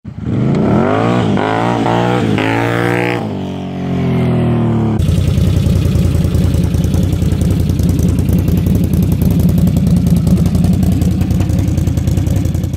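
2009 Can-Am Renegade 800R's V-twin engine revving up and down repeatedly as the ATV rides past. About five seconds in, a cut to the engine running steadily at idle with a fast, even beat.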